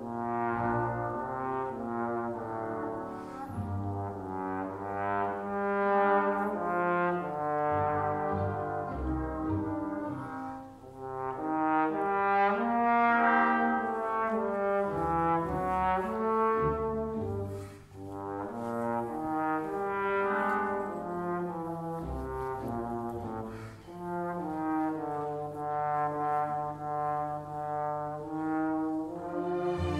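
Four solo trombones playing sustained chords in close harmony, backed by a symphony orchestra's strings. The passage runs in phrases separated by short breaths, about three times.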